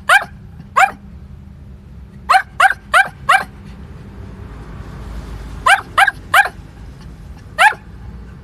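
Pomeranian barking in short, sharp barks, single or in quick runs of up to four, about ten in all. The dog is impatient at being left waiting.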